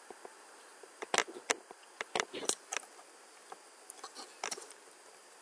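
Sharp clicks of a computer keyboard and mouse entering a spreadsheet cell reference: a quick run of about six clicks starting about a second in, then a few more near the end.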